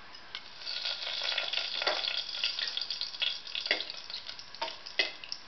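Whole spices, bay leaf among them, sizzling and crackling in hot ghee in a pressure cooker, while a metal spoon stirs them and clinks against the pot about four times.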